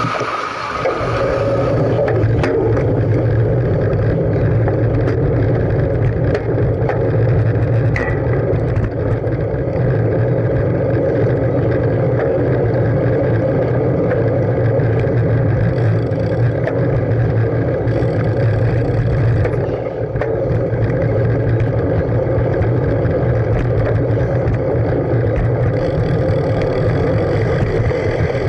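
Steady wind rumble and road noise on a bicycle-mounted camera's microphone as the bike rolls along paved streets, with a few small knocks.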